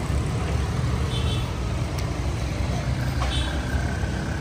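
Steady low rumble of outdoor background noise, with a few faint short high-pitched calls over it.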